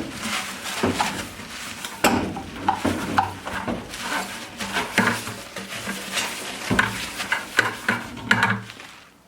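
Irregular clicks and light knocks of small hard parts being handled: the water heater's washed pre-filter and its fittings being picked up and readied for refitting. A low hum runs faintly underneath.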